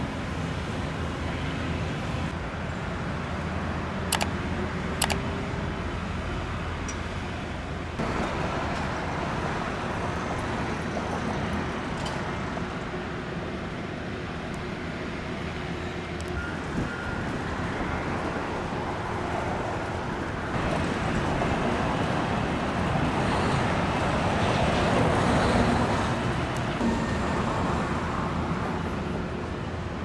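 Steady road traffic noise, with two sharp clicks about four and five seconds in. The sound grows louder for several seconds in the second half, then eases off.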